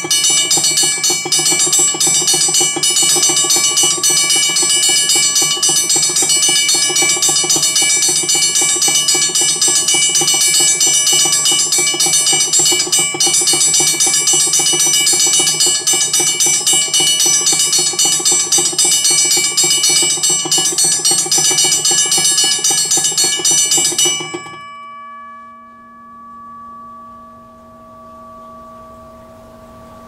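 WABCO BA-10 railroad crossing bell, its rotary solenoid driving the hammer in a continuous rapid ringing, much faster than such a bell's rate in service. About three-quarters of the way through the striking stops, and the bell's tones ring on and fade.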